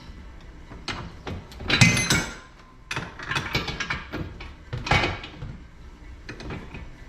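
Irregular knocks and metallic clinks of tools and parts being handled and set down, the loudest about two seconds in, with more around three and five seconds.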